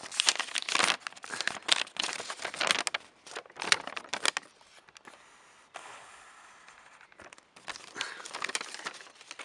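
Paper instruction leaflet being unfolded and handled, crinkling and rustling in bursts, with a quieter pause a little past the middle.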